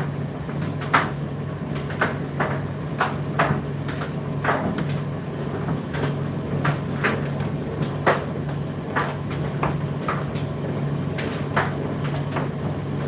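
Indesit IDC8T3 condenser tumble dryer running mid-cycle: a steady motor hum with irregular knocks, about one or two a second, as the load tumbles in the turning drum.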